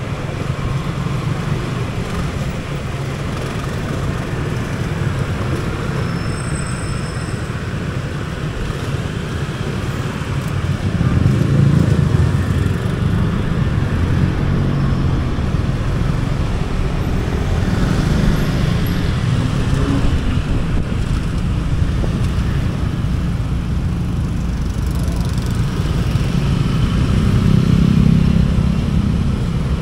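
Motorcycle riding in city traffic, heard from a helmet-mounted camera: a steady low engine and road rumble that swells louder twice, about a third of the way in and near the end.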